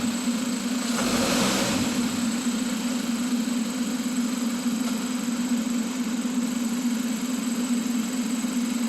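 2013 Kia Optima engine running steadily while held in drive on the brake to put it under load, with a brief rush of noise about a second in. The engine is logging a cylinder 2 misfire (code P0302).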